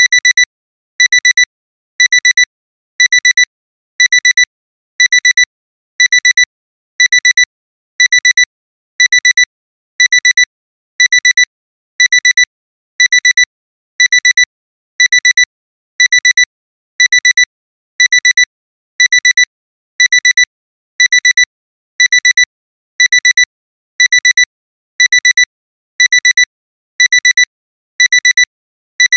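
Digital alarm clock alarm beeping: a high-pitched cluster of rapid beeps repeating about once a second, signalling that the timer has run out.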